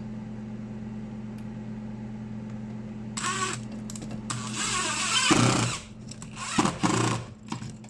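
Power drill driving a screw to fasten a metal handy box, in three short runs, the middle one the longest and loudest. A steady low hum sounds underneath.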